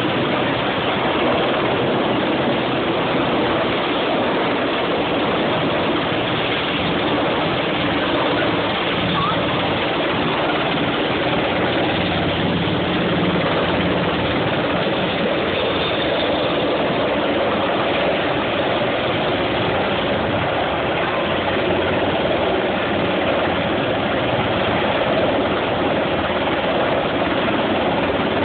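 Merlin helicopter's turbine engines and rotor running as it hovers low over a ship's flight deck to land: a loud, steady rushing drone.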